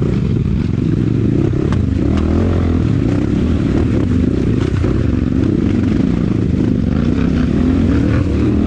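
Kayo T4 250 dirt bike's engine running at low, uneven throttle while the bike picks its way through a muddy rutted trail, with a sharp knock from the bike about two seconds in.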